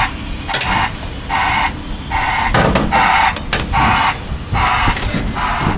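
Backup alarm on heavy equipment pulsing steadily, about one pulse every 0.8 seconds, over the low rumble of a diesel engine.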